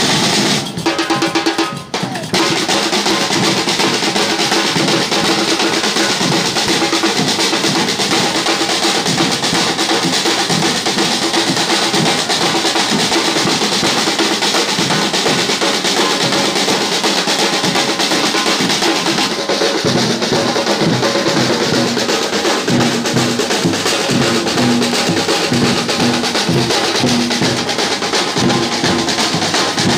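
Drum-led percussion music with a fast, steady beat; a repeating pitched figure joins in about two-thirds of the way through.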